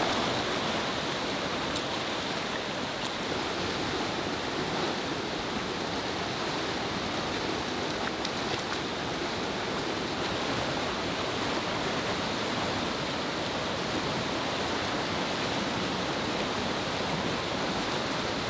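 Fast-flowing, muddy river rushing steadily over rapids: a continuous, even roar of whitewater.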